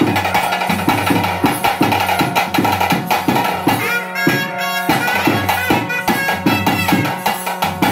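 Traditional ritual music for a bhuta kola: hand drums beating a fast, even rhythm under a steady drone, with a pipe playing a melody over it. The drumming thins briefly about four seconds in while the pipe carries a short run.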